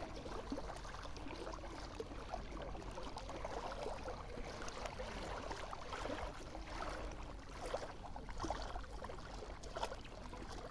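Sea water lapping and gurgling in a steady wash of small waves, with a few slightly louder surges about eight seconds in.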